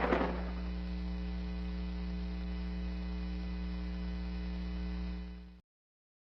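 Steady electrical mains hum with a stack of overtones, cutting off suddenly about five and a half seconds in. A noisy rumble fades out in the first moment.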